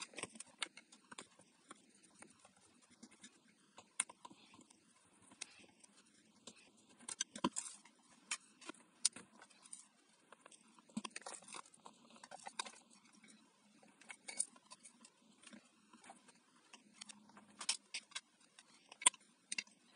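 Scattered light plastic clicks, taps and scrapes as the red plastic housing of an Arzum Speedmix (AR1013) hand blender is handled and pried apart, with a few sharper snaps here and there.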